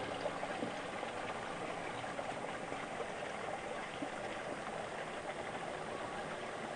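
Steady rushing noise like running water, with a faint low hum beneath it.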